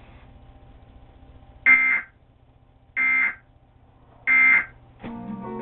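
Emergency Alert System end-of-message data tones: three short, high-pitched bursts about 1.3 seconds apart, heard through a TV set's speaker over a low hum. Near the end, TV audio with guitar music comes back in.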